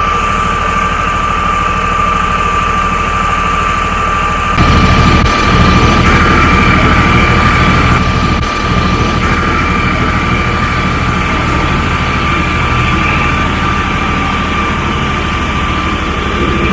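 Heavy diesel engine running steadily under load, with a constant high whine over the low rumble; the sound gets louder and shifts abruptly a few times.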